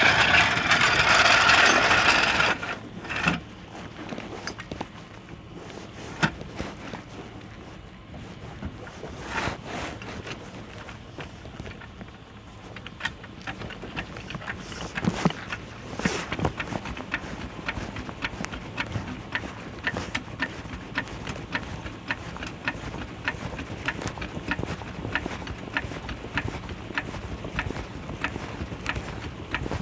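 Tire-changing work with hand tools and a floor jack: scattered metallic knocks and scrapes, settling into a steady run of light mechanical clicks in the second half. A loud rushing noise at the start cuts off after about two seconds.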